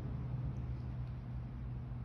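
Steady low hum over a rumbling background noise, with no clear individual events.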